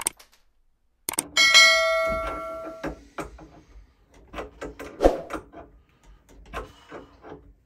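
Subscribe-button sound effect: a mouse click about a second in, then a bell-like ding that rings out for about a second and a half. A few soft clicks follow, with one louder knock about five seconds in.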